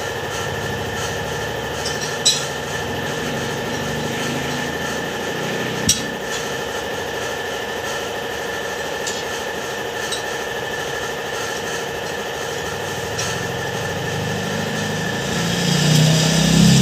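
Steady mechanical hum with two sharp metallic clinks a few seconds apart. An engine comes in and grows louder near the end.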